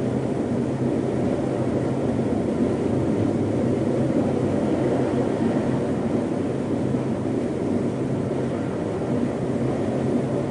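Strong storm wind in a steady, low rumbling rush, sold as the sound of a tornado or hurricane, with no gusts or breaks.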